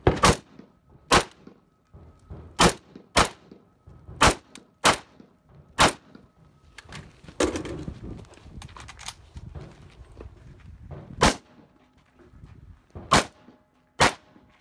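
Valmet AK-pattern rifle fired semi-automatically: about eleven sharp single shots at an uneven pace, several in quick pairs, with a pause of a few seconds near the middle.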